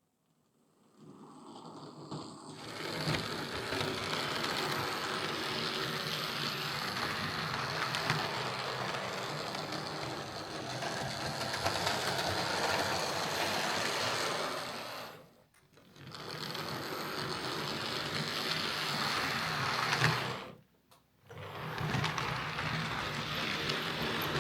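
Hornby OO gauge King Class model locomotive running on the track, its motor and gear train whirring with a wee bit of a grinding, rattling noise, which is typical of a gear problem. It builds up about a second in and cuts out briefly twice, about two-thirds of the way through and again near the end.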